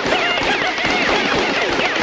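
A dense jumble of overlapping comic sound effects: many whistle-like sliding tones rising and falling over rapid clattering.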